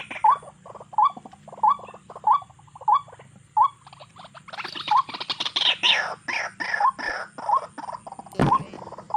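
Birds calling: a short rising chirp repeats about every two-thirds of a second, joined midway by a burst of fast chattering calls. Near the end there is a single sharp crack, an air rifle shot.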